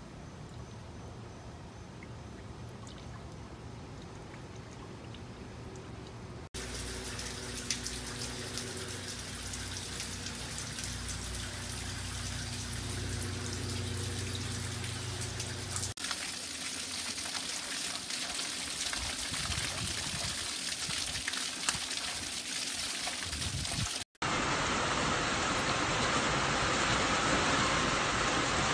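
Rainwater trickling and splashing down a copper cup-style rain chain, over a steady hiss of rain. The sound changes abruptly three times as separate recordings cut in, with a low steady hum under the middle stretch.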